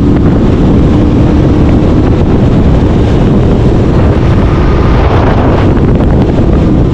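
Yamaha R7's 689 cc parallel-twin engine with an Akrapovič exhaust running at speed, loud and steady, mixed with heavy wind noise on the microphone.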